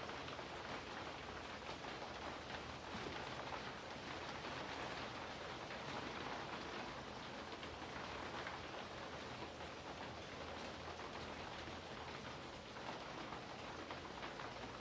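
Steady rain falling: an even hiss with the patter of individual drops.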